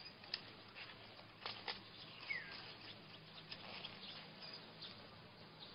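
Faint outdoor background: scattered soft clicks and ticks, with one short falling chirp about two seconds in.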